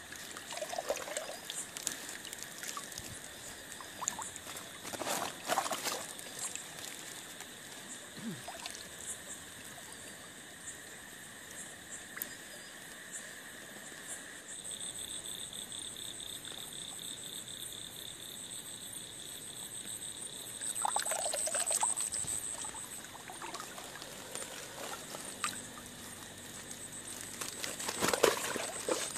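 Water splashing and trickling as a person wades in a shallow river and handles a fishing net, in several short bursts, the biggest around five seconds in, around twenty-one seconds and near the end. Under it runs a steady high-pitched night chorus of calling insects and frogs, its pitch changing about halfway through.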